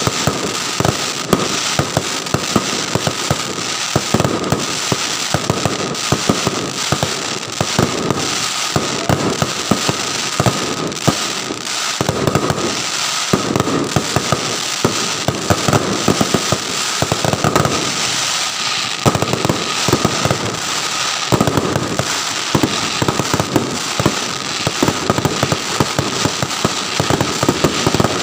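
Many fireworks and firecrackers going off at once: a dense, continuous barrage of overlapping bangs, pops and crackles with no break, and a steady faint high tone underneath.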